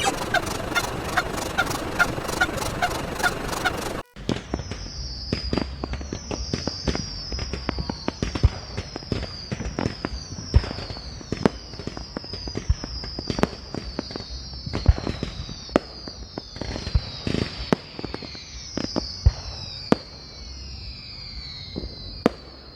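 Edited sound effects: a honk repeated about three times a second, cut off abruptly about four seconds in. Then scattered sharp pops and crackles, with a high falling chirp repeating under them.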